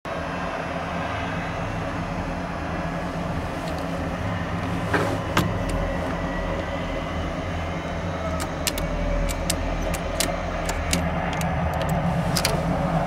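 A steady low droning hum under a series of sharp clicks, a couple about five seconds in and a quick run of them over the last few seconds, as the English Electric Lightning's control stick grip and its buttons and trigger are handled.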